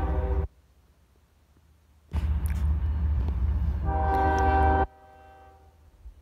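Diesel freight locomotive's air horn blowing for a crossing as the train approaches, two blasts over a deep rumble. The first blast cuts off sharply about half a second in; the rumble returns about two seconds in, and the second blast sounds near four seconds and cuts off abruptly, leaving the horn faint for a moment.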